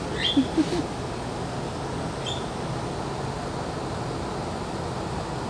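Steady background hum and hiss of the room. Two brief voice-like sounds come about half a second in, and a faint short chirp a little after two seconds.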